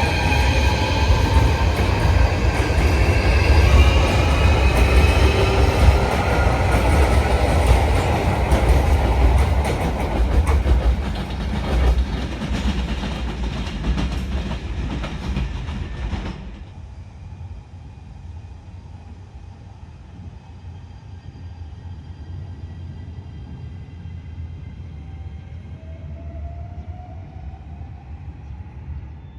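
Train running and speeding up: a heavy rumble with several rising tones from its drive. About sixteen seconds in, the sound cuts off abruptly to a much quieter train sound, with a faint rising whine near the end.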